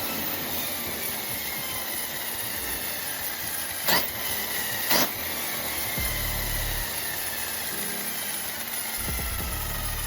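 1/5-scale HPI 5SC Super Flux electric RC truck on a test run: its Castle 1518 1800 kV brushless motor gives a faint whine that slowly falls in pitch over a steady hiss, with two sharp clicks about four and five seconds in.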